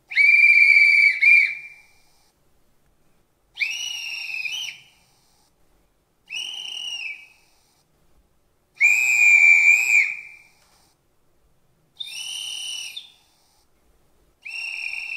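Six conductor's whistle blasts, one after another with short pauses, each a steady shrill tone of about a second, differing slightly in pitch; the first and fourth are the loudest. They are sound samples played back through the model locomotive's ESU LokSound 5 XL decoder loudspeaker.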